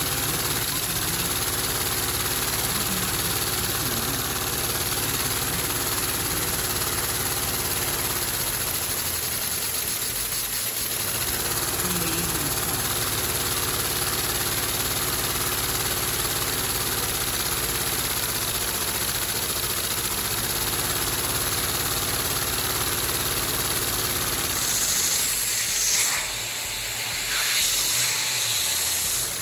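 Three-cylinder Lego vacuum engine running at about its top speed on vacuum-cleaner suction: a loud, steady hissing rush of air over the fast patter of the plastic engine. There are a few brief louder rushes near the end.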